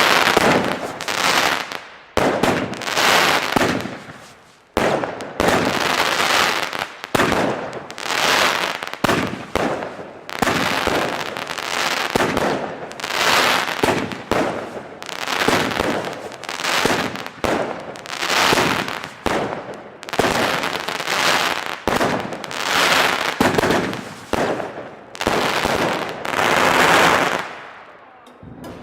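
Weco 'High Voltage' consumer firework battery firing shot after shot, roughly one every second or so, each a bang that fades away before the next, about twenty in all, ending shortly before the end.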